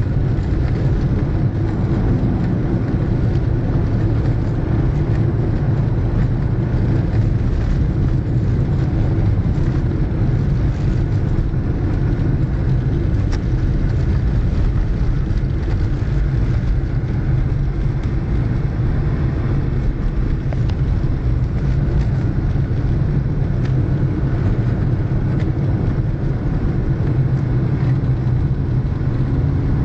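A VW Vento driving steadily on studded winter tyres: a constant low engine hum under heavy rumble from the tyres on a rough, washboard-like road surface.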